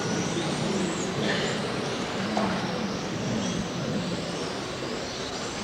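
Electric motors of 1/12-scale radio-controlled racing cars whining at speed on the track, the high whines rising and falling in pitch as the cars pass, over a steady noise of the racing hall.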